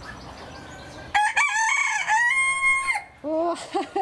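Rooster crowing once: a cock-a-doodle-doo of about two seconds, starting about a second in and ending on a long held note. A few short, lower clucks follow near the end.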